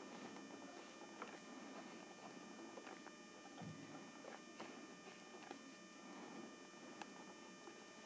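Faint scratching of a ballpoint pen writing on notebook paper, with a few light ticks.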